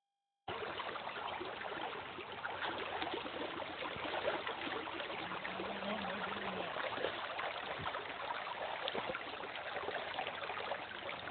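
River current running and rippling steadily, a continuous crackly rush of moving water that starts abruptly about half a second in.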